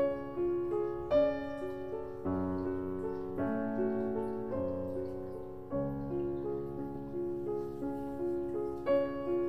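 Background piano music: a melody of separate notes over low bass notes that change every few seconds.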